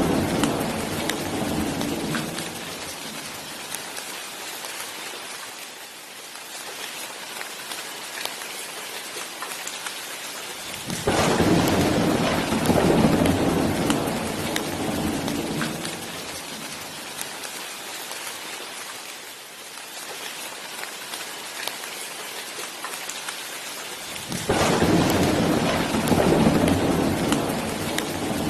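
Thunderstorm: steady heavy rain with rolls of thunder. One roll is dying away at the start, another comes in suddenly about a third of the way through, and a third comes in near the end, each fading out over several seconds.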